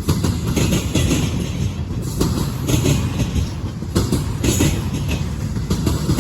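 Double-stack freight train cars rolling past: a steady low rumble with irregular clatter of steel wheels over the rail joints.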